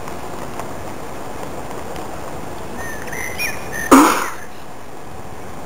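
A person's face is down in a pile of white powder on the ground, and a single short, loud burst of breath, a snort or blow into the powder, comes about four seconds in and dies away within half a second. A few faint chirps come just before it, over steady outdoor background noise.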